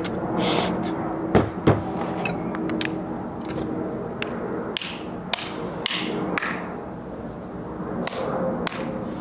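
A hammer striking a rod to drive a tight-fitting push disc down into a 37mm aluminum shell hull: a series of short, sharp knocks at uneven intervals, the two loudest close together about a second and a half in. The fit is meant to be tight, for a good gas seal.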